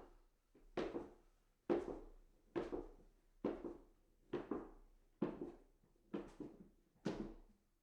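Foley footsteps walking up stairs: eight evenly paced steps, a little under one a second, each a sharp thud with a short fade, some with a lighter second tap.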